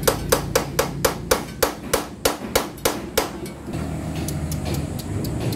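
Steel hammer blows on metal, knocking the old, worn steering-head bearing race out of a Yamaha Mio scooter's steering head. The blows come about three a second, each with a short metallic ring, and stop about three seconds in.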